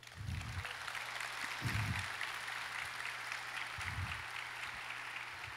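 Audience applauding, a dense, steady clapping, with three low thumps under it.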